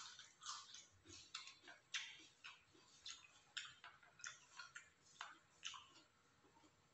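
Faint wet mouth clicks and smacks of someone chewing a mouthful of chicken satay and rice, about two a second at uneven intervals.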